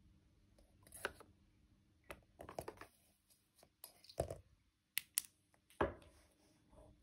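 Hands handling a UV flashlight and a squid jig in a small room: irregular clicks, taps and rustles, with two sharp clicks a little after five seconds in.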